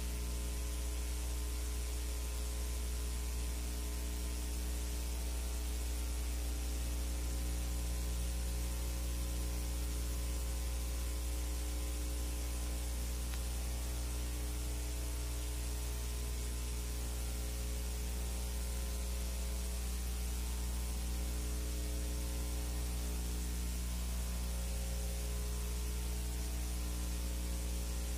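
Steady electrical mains hum with even hiss, and no other sound: the empty soundtrack of a silent film transfer.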